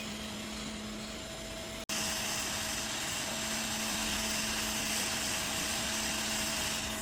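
Hot air rework gun blowing steadily, airflow set at 80, while heating the solder around a laptop logic board's CPU. A steady hiss with a faint hum; it drops out for an instant about two seconds in and comes back louder and brighter.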